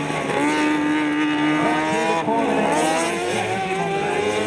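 Several ride-on lawnmower engines racing, their pitch rising and falling as they rev and ease off.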